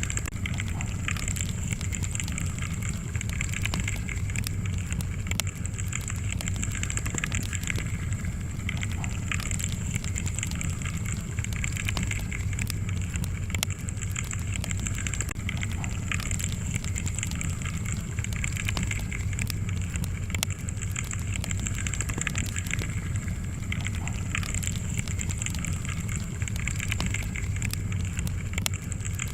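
Wood fire crackling: a steady low roar of flames with frequent small pops and snaps scattered throughout.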